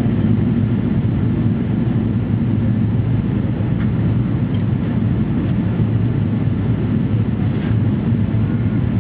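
Boeing 777 passenger-cabin noise: the steady low rumble of engines and airflow heard from inside the aircraft.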